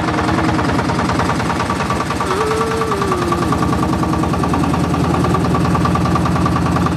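A small boat's engine running steadily with an even, rapid knock. A fainter wavering tone rises and falls above it from about two seconds in.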